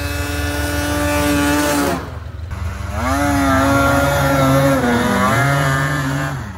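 Two-stroke snowmobile engine running at high revs, its pitch held nearly steady for about two seconds. After a brief break, the revs rise and fall as the throttle is worked.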